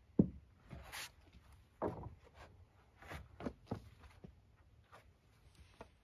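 Sawn pine boards being handled and laid onto a stacked lumber pile: a series of short wooden knocks and scrapes, the first just after the start the loudest, with footsteps between them.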